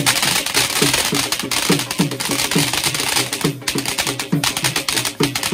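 A ground firework spraying sparks, hissing and crackling, over music with a steady drum beat whose strokes drop in pitch, two or three a second.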